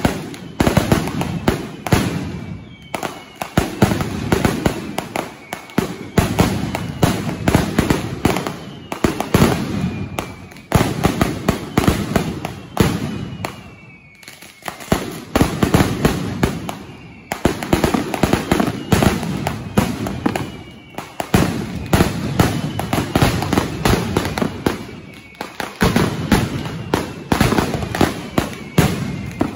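Mascletà firecrackers going off in a dense, continuous barrage of sharp bangs, with repeated falling whistles over the explosions. The barrage dips briefly a few times before building again.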